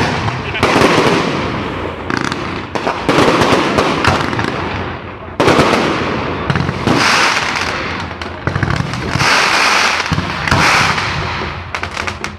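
Fireworks going off in quick succession: sharp bursts with dense crackling between them, with new loud bursts about half a second in, about 3 seconds in and about 5 seconds in.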